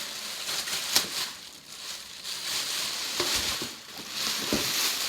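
Plastic bag crinkling and rustling as a unit is pulled out of it, with a sharp click about a second in and a few light knocks in the second half.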